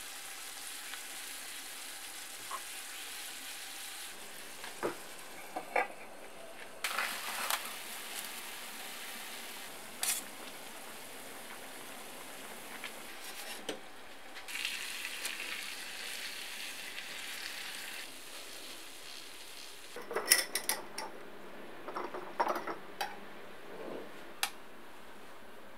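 Sauce sizzling and simmering in a skillet of braising chicken legs and cherry tomatoes, with a spatula knocking and scraping in the pan now and then. Near the end a metal spoon clinks several times against a glass jar.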